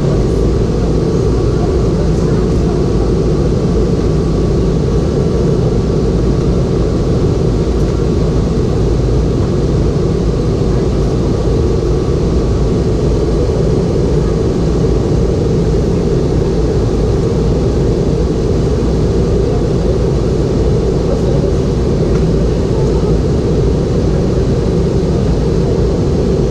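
Steady cabin noise of a Boeing 717 airliner in flight, heard inside the cabin: the rush of air past the fuselage and the hum of its rear-mounted BR715 turbofan engines, deep and unbroken.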